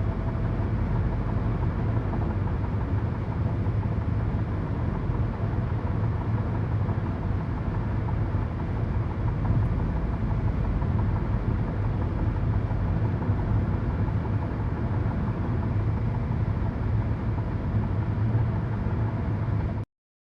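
Steady road and engine noise heard from inside a car cabin at highway speed: a constant low rumble with tyre and wind hiss, cutting off abruptly near the end.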